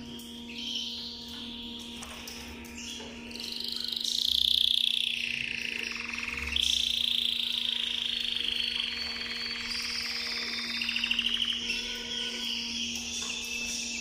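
Canary singing a long, unbroken song of fast rolling trills and held whistled notes, loudest about four seconds in, over a steady low hum.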